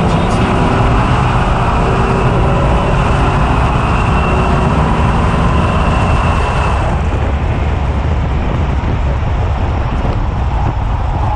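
Whipple-supercharged 2019 Ford F-150's 5.0 V8 running hard down a drag strip, with heavy road and wind noise. The upper hiss thins out about seven seconds in.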